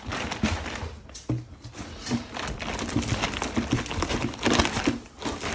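Irregular rustling and light knocks as a foil-lined padded bag and nylon webbing straps are handled and pulled.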